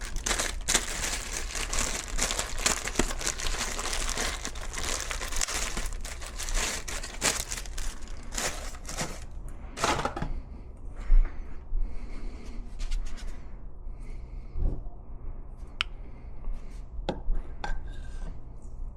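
Crinkling and tearing of packaging as a new oil filter is unwrapped, for about the first ten seconds, then a few light scattered clicks of the parts being handled.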